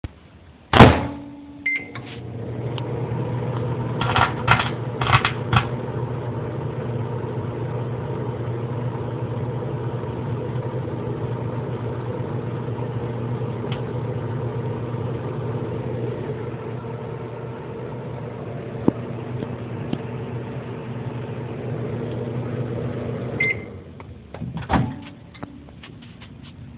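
Microwave oven: a thump, a short beep, then the steady hum of the oven running for about twenty seconds, with a quick run of sharp snaps a few seconds in as the aluminum foil inside sparks. The hum stops with another beep near the end, followed by clicks and a thump.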